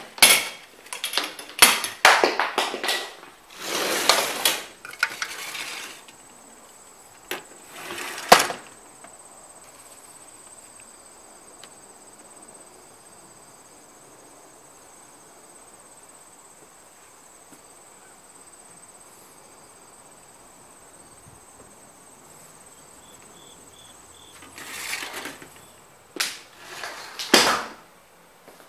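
Rattling and sliding of a patio screen door being handled, then a faint, steady, high-pitched insect trill from the yard, then more door rattling near the end.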